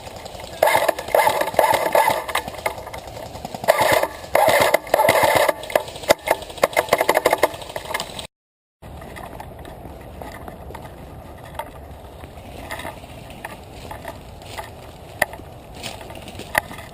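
Bursts of full-auto fire from an electric airsoft gun, each a rapid mechanical rattle lasting about half a second to a second, repeated several times over the first eight seconds. After a brief dropout the sound turns quieter, with only occasional sharp clicks.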